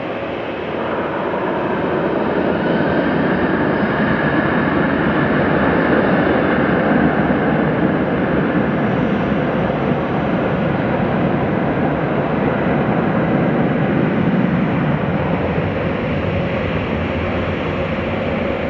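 Jet engines of a Ryanair Boeing 737 spooling up to takeoff thrust about a second in, with a rising whine, then running loud and steady as the aircraft rolls down the runway.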